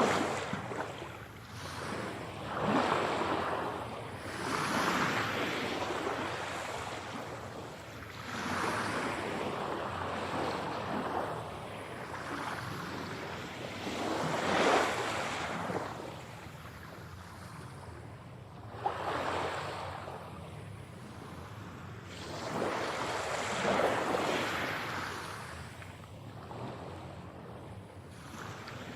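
Sea waves breaking and washing on a shore, each wave swelling up and falling away every few seconds over a steady background hiss of surf.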